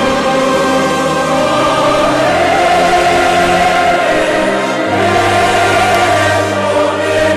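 Symphony orchestra with a choir singing long, slow sustained chords. A low bass note comes in about five seconds in.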